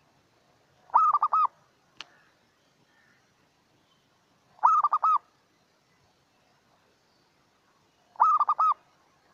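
Zebra dove (merbuk) cooing: three short phrases of about four quick coo notes each, a few seconds apart. A faint click comes after the first phrase.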